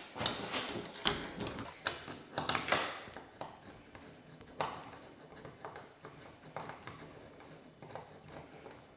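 Irregular light clicks and taps of metal door-knob hardware and a screwdriver being handled and fitted. They come thick and fast for about three seconds, then grow sparser and fainter.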